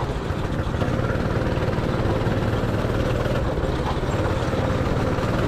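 Go-kart engine running at a steady pitch while the kart is driven along the track.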